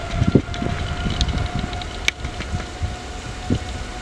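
Jet engines of a Boeing 787 airliner giving a steady whine as the aircraft moves slowly on the runway, with wind gusting on the microphone.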